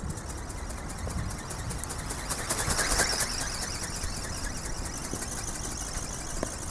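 Small electric RC ornithopter flying past: the high-pitched buzz of its brushless motor and geared flapping drive swells about two and a half seconds in as it comes close, then fades, over a low rumble of wind on the microphone.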